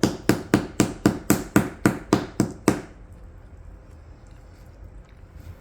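A toy mallet hammering at a gem dig kit's block, freeing a stone that is hard to get out. About a dozen quick, even knocks come at roughly four a second and stop about three seconds in.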